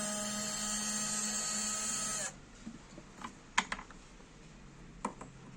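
Cordless drill motor running at a steady high whine, then cutting off abruptly about two seconds in. A few sharp clicks follow.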